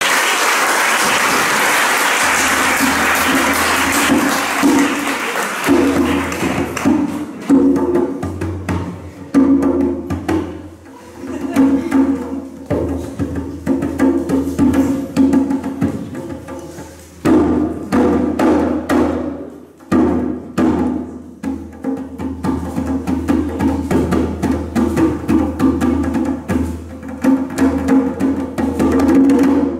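Live instrumental accompaniment with rhythmic percussion, knocks like a wood block and drum over sustained pitched notes, picked up by a room microphone in the hall. It opens with about six seconds of a steady noisy rush before the beat sets in.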